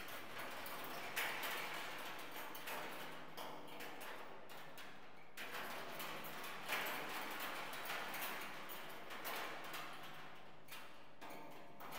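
Metal spoons on wires, set moving by a motor, rattling and clinking against a hanging steel oil drum in a dense, rapid stream of small metallic ticks. The clatter swells about a second in and again near seven seconds, easing off in between.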